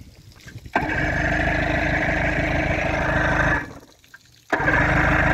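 Evinrude 115 two-stroke outboard motor on a flushing hose being started: its sound comes in suddenly under a second in, runs steadily for about three seconds, cuts out, then comes in again about a second later.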